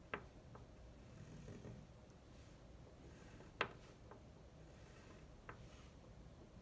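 Quiet sounds of a wax crayon being drawn over paper on a wooden table, with three sharp ticks, the loudest about three and a half seconds in.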